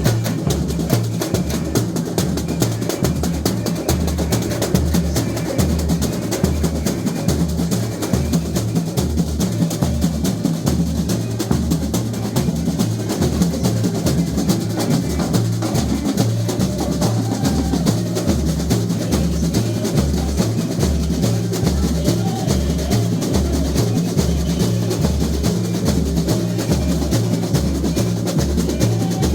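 Samba school bateria playing a full samba groove. Deep surdo bass drums alternate in a steady beat under a dense, continuous layer of snare drums and higher percussion.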